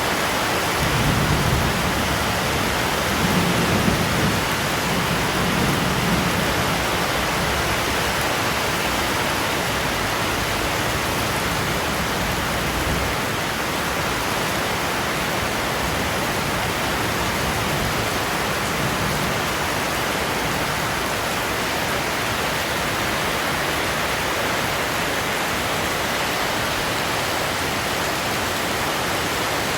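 Heavy rain falling steadily, a dense even hiss, with a low rumble during the first six seconds or so.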